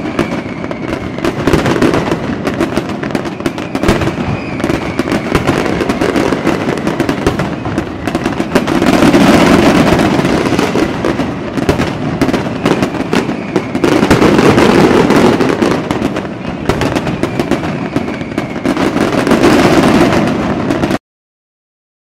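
Fireworks display: a dense run of crackling pops and bangs, with louder booming swells every few seconds and a few faint whistles. It cuts off suddenly about a second before the end.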